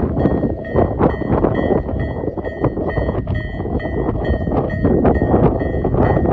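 Japanese railway level-crossing alarm of the Tobu Isesaki type: an electronic bell dinging steadily about two and a half times a second. Under it is the loud rumble of a train passing over the crossing.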